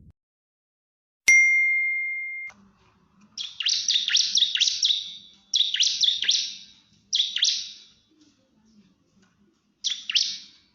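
A bar-winged prinia (ciblek) singing fast, dense bursts of sharp chirps, the rapid 'nembak' song used to challenge rival birds, in four phrases and then one short one near the end. About a second in, a click and a steady ringing ding tone last about a second before the song begins.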